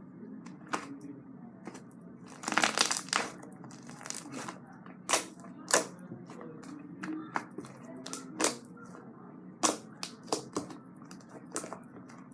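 Fluffy slime being squished by hand, giving irregular wet pops and crackles, with a dense run of them about two to three seconds in.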